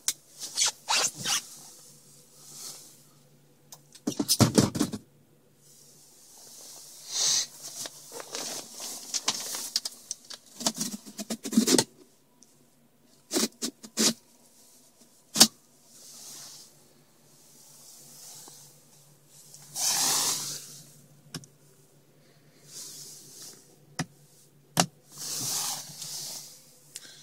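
Fabric rustling and handling noise inside a car's cabin: scattered sharp clicks and knocks and a few longer swishes, over a faint steady low hum.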